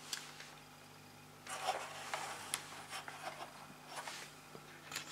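Faint handling noise: a brief rub about a second and a half in, and a few scattered light clicks.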